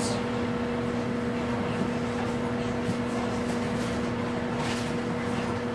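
Over-the-range microwave oven running: a steady hum with two low, even tones. A plastic bag crinkles briefly about four and a half seconds in.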